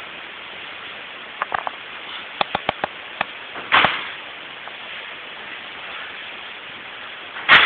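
Judo throws landing on tatami mats: two loud slapping breakfalls about four seconds apart, with a few short sharp taps before the first. A steady hiss runs underneath.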